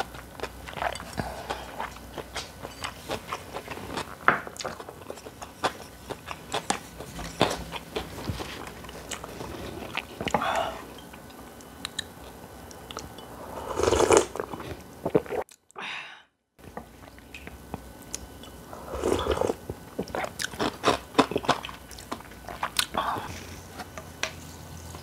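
Close-miked eating sounds: crisp crunching and chewing of spicy kimchi and cold noodles, with a few longer, louder mouth sounds. The sound drops out completely for about a second midway.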